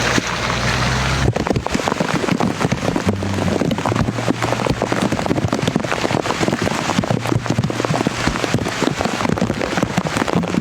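Heavy rain pattering, a dense irregular spatter of drops.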